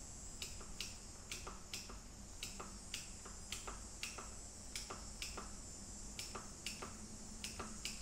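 Computer keyboard keys clicking at an unhurried, uneven pace, about two strokes a second, over a steady high drone of cicadas coming through an open window.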